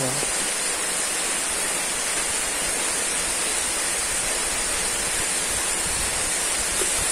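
Chicken deep-frying in hot oil: a steady, even sizzle.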